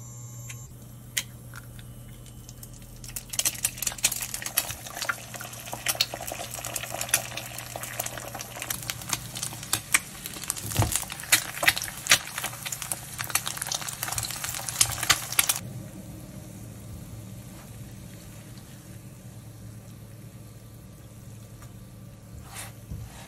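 Eggs frying in hot oil in a nonstick wok: dense crackling and spattering starts about three seconds in and stops abruptly about two-thirds of the way through, leaving a softer sizzle. A low steady hum runs underneath, and the spatula knocks once near the end.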